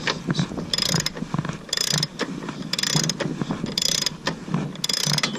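Socket ratchet wrench worked in repeated strokes, giving a short burst of ratchet clicking about once a second with smaller clicks between. It is turning a nut on the motorcycle's rear wheel while the chain tension is being adjusted.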